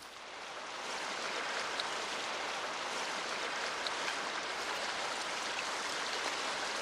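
Rushing water: a steady, full hiss of a fast stream that fades up over the first second and then holds.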